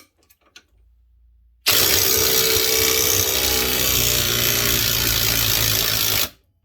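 Ryobi 18V One+ HP brushless 1/2-inch mid-torque impact wrench hammering on a grade 8 coarse-thread 7/16 bolt; it starts sharply under two seconds in, runs steadily for about four and a half seconds and stops, by which point the bolt's thread is ripped out.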